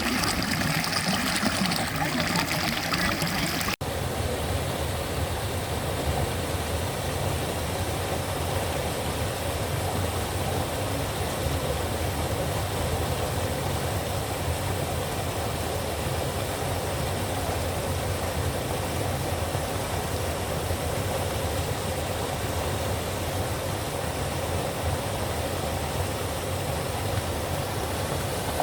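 Water running and trickling for the first few seconds, then, after an abrupt cut, a steady low rushing rumble.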